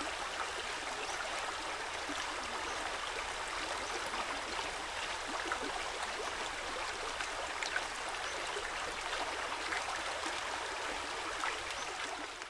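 Steady rush of flowing stream water, with small trickling splashes scattered through it.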